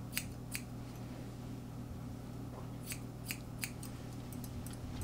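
Grooming scissors snipping the hair around a miniature schnauzer's eyes: two snips near the start, a quick run of three about three seconds in, then a few fainter ones near the end, over a steady low hum.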